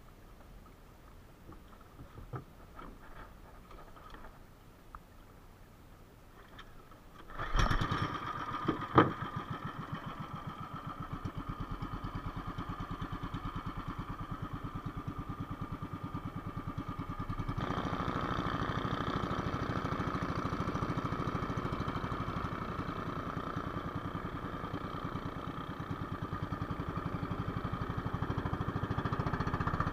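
A small outrigger boat's engine starts about seven seconds in, with a sharp knock a second later, then runs steadily and picks up speed about halfway through. Before it starts, only faint scattered clicks.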